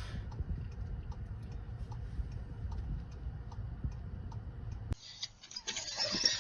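Faint ticking, a few ticks a second, over a low steady rumble. It cuts off suddenly about five seconds in.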